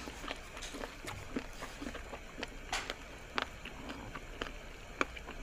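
Close-miked mukbang sounds: scattered soft, wet clicks and ticks of chewing and of raw squid being handled with gloved hands, a few sharper clicks about three and five seconds in.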